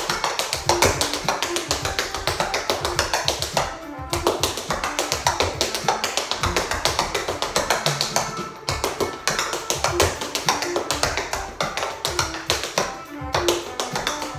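Metal-tipped tap shoes striking a bamboo floor mat in a fast, rhythmic string of tap steps, with short breaks about four and eight and a half seconds in. Backing music plays under the taps.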